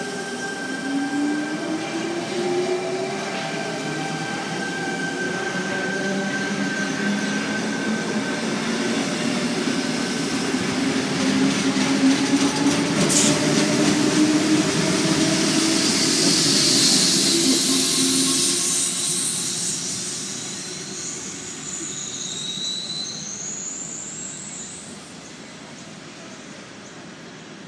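Sydney Trains Tangara double-deck electric train pulling away: the traction motor whine climbs in pitch as it accelerates, over a rising rush of wheel and rail noise with one sharp click partway through. Near the end, high wheel squeal comes in as the train runs off, and the sound fades.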